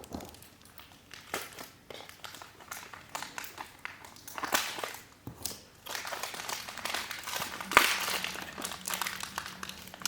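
Plastic packaging crinkling and rustling as small Beyblade parts are taken out of their bags, with scattered light clicks of plastic parts; one sharp click about eight seconds in is the loudest.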